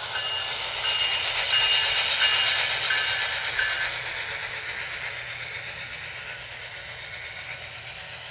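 HO scale model train running past at close range: a CN diesel locomotive followed by covered hoppers and boxcars rolling along the track. It is loudest about two to three seconds in, then gradually gets quieter as the locomotive draws away.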